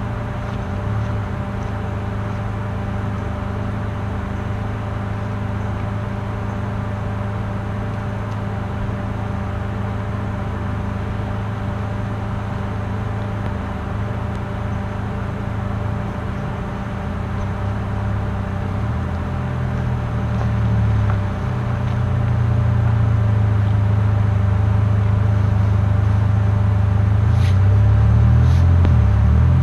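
Steady low engine hum, like a motor vehicle idling, that grows louder about two-thirds of the way through. Two faint clicks near the end.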